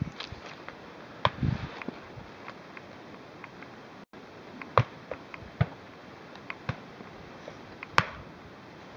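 A few sharp, short shotgun reports spaced irregularly, the loudest about eight seconds in. A brief rustle of crop stalks about a second in.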